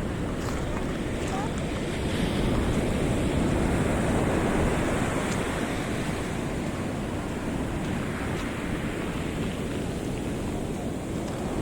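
Pacific Ocean surf breaking and washing on the beach, with wind buffeting the microphone. The wash swells about two seconds in and eases off again a few seconds later.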